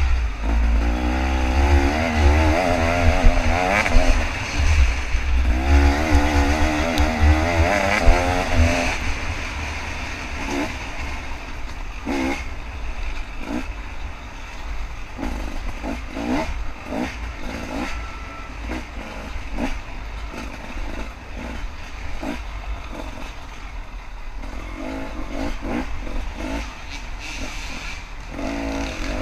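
KTM 300 two-stroke dirt bike engine revving hard up and down for about the first nine seconds, then running lower with short knocks and rattles from the bike over rough ground, picking up again briefly near the end.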